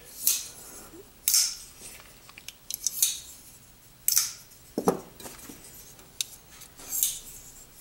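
Titanium framelock folding knives being opened and closed by hand: about six sharp metallic clicks and snaps as the blades swing out and lock up on the carbidized lock bar, then are released and shut.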